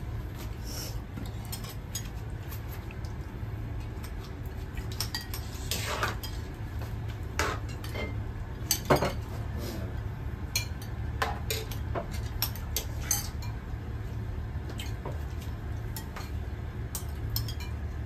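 Metal spoons and ladles clinking against plates, bowls and a steel hot pot as food is served, in scattered light clinks, with a steady low hum underneath.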